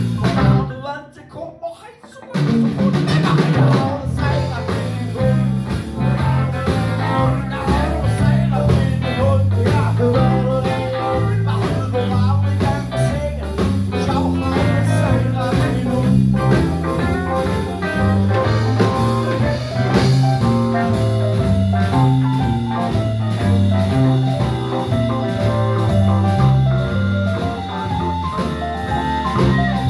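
Live blues band playing: electric guitars, electric bass with a walking bass line, drum kit and keyboard. The full band comes in about two seconds in, after a brief lull.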